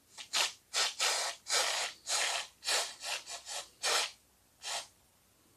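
Aerosol can of spray glue hissing in about a dozen short bursts, some up to half a second long, as it coats a small sea foam model tree; the last burst comes about three-quarters of the way through.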